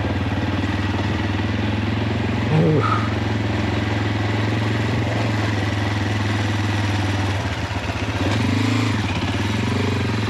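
Motorcycle engine running steadily under way, with the drive chain noisy enough that the rider means to check it. The engine note wavers briefly near the end.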